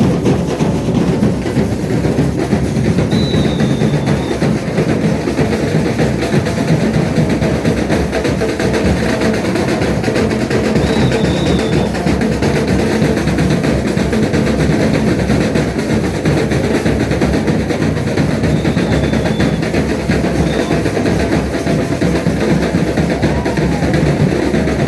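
Carnival comparsa percussion band drumming without a break, a dense, loud mix of bass and snare drums. A short high tone cuts through about every eight seconds.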